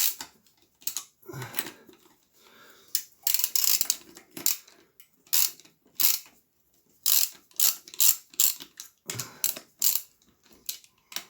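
Ratchet socket wrench clicking in short bursts, stroke after stroke with brief pauses, as already-loosened cylinder head bolts are backed out.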